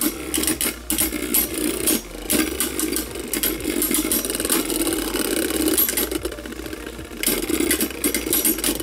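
Two Beyblade Burst tops, Zillion Zeus I.W. and Holy Horusood, spinning together in a plastic stadium: a steady whir with rapid clicking and clattering as their layers knock against each other. The clicking thins out briefly about six seconds in, then picks up again.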